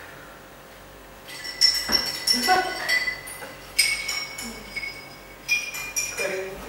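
Glasses and dishes clinking, starting about a second in, in several clusters of strikes that each ring briefly.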